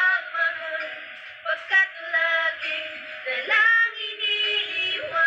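A woman singing a Tagalog ballad unaccompanied by speech, holding long, wavering notes.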